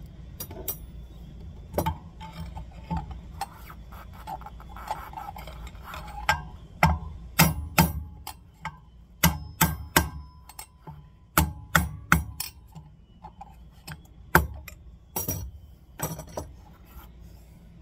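Hammer tapping on a long screwdriver used as a drift to knock a bearing race cup out of a pit-bike rear wheel hub: a run of sharp, irregularly spaced taps, coming thicker and louder in the second half.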